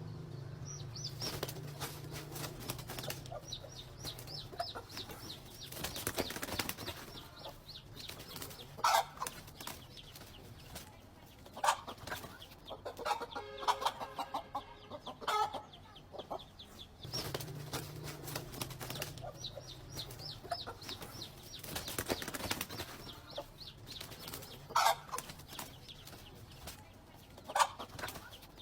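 Bird calls and wing flapping, a string of short, sharp calls and clicks. The same stretch of sound plays twice.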